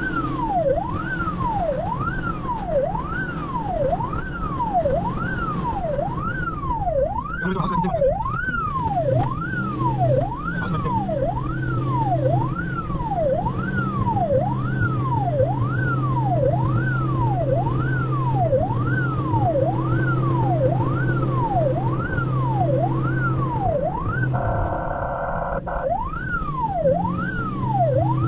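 Ambulance siren heard from inside the cab, sweeping up and down about once a second over a steady engine and road drone. About 24 seconds in it gives way for a second and a half to a steady blaring tone, then the sweeping resumes.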